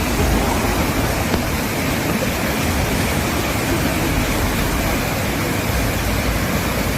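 Steady, loud rushing noise of heavy rain and floodwater around a car caught in a flash flood, heard from inside the car, with a deep rumble underneath.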